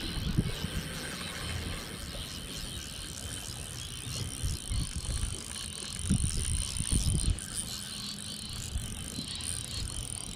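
Shimano Stradic Ci4+ spinning reel being wound against a hooked fish on a bent rod, giving a fast, fine, even ticking, with dull low knocks now and then.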